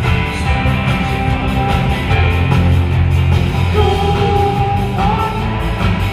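Rock band playing live through a concert hall's PA system: electric guitars, bass, drums and keyboards, with a strong steady bass line.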